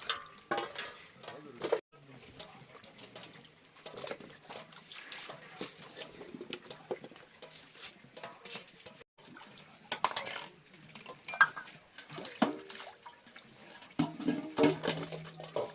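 Water running and splashing, with the repeated clatter of metal pots and utensils being handled, as in washing dishes.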